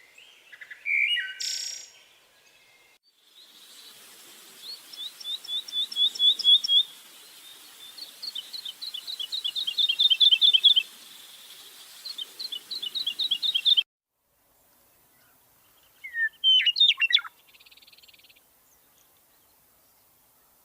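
Songbird singing: three trilled phrases of rapid repeated high notes, each building in loudness, the last one cut off suddenly. A brief call comes about a second in, and another call a couple of seconds after the phrases.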